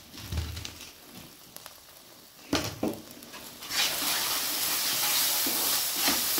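Mawa mixed with powdered sugar being stirred and spread with a wooden spatula in a hot non-stick pan. A few knocks and scrapes of the spatula come first, then a steady sizzle sets in a little past halfway as the mawa is spread over the hot pan to roast.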